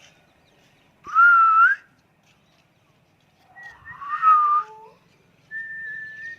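A parrot whistling three times: a short rising whistle, then a longer call with gliding tones, then a steady held whistle near the end.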